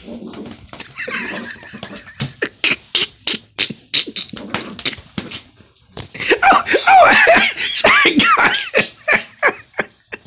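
Small terrier making quick, sharp snorts and huffs in short bursts as it goes after a sock. About six seconds in, a stretch of high-pitched laughter joins in for a few seconds.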